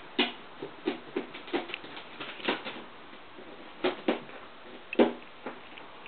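Two kittens scuffling and play-fighting in a pet bed: a run of irregular soft taps and thumps, the loudest about five seconds in.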